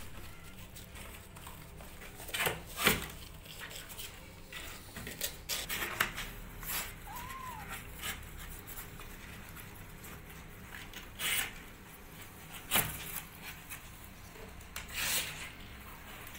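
Kittens' claws scratching and scrabbling on cardboard as they climb and scramble inside a box, in irregular short scrapes, several of them sharp and loud.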